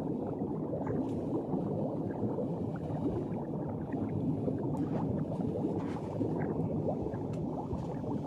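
Underwater sound effect of continuous bubbling and gurgling water, with many small bubble pops.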